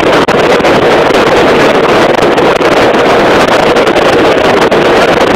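Hailstones hitting the roof and windshield of a moving vehicle, heard from inside the cabin as a loud, dense, unbroken clatter of impacts.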